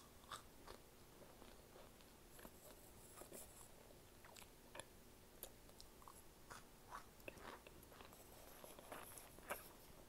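Faint chewing and biting of microwaved cornstarch chunks: scattered small crunches and mouth clicks. The chunks are still soft, not hard.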